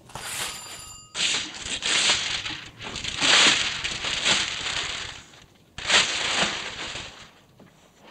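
Gift-wrapping paper being torn and crumpled off a large painted canvas, in several long rips that die away near the end.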